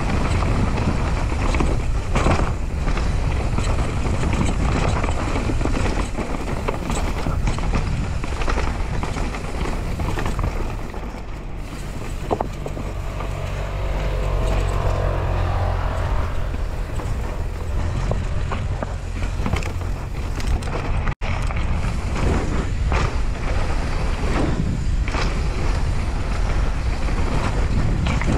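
Mountain bike descending a downhill race course, heard from an on-board camera: wind buffeting the microphone, tyres on dirt, and frequent knocks and rattles of the bike over rough ground. There is a brief dropout about two-thirds of the way through.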